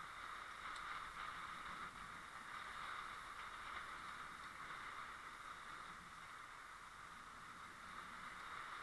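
Steady, muffled rushing noise of a fishing boat at sea, water and boat noise blended into an even hiss with no distinct events.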